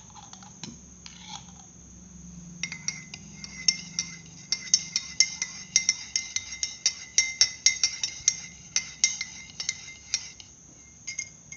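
A spoon stirring a drink in a glass, clinking against the side again and again, about three or four times a second, each clink ringing briefly. The clinking starts about two and a half seconds in and stops near the end.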